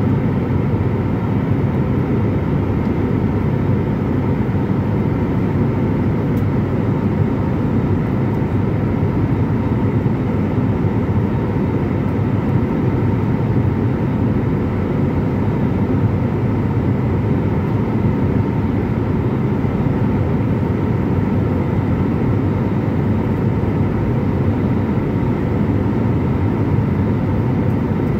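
Jet airliner's turbofan engines and airflow heard from inside the cabin: a steady, deep, even noise with faint steady whine tones above it.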